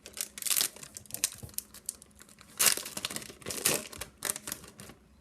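Foil Yu-Gi-Oh! booster pack wrapper being torn open and crinkled by hand, in irregular bursts of crackling, with the louder rips about half a second, two and a half seconds and three and a half seconds in.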